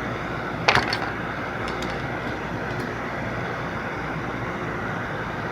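Steady room hum with no burp or speech, broken by one sharp click a little under a second in and a few faint ticks after.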